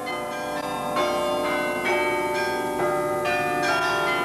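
Carillon of over 74 tower bells playing a melody from the keyboard, a new bell struck about every half second with long ringing notes overlapping one another.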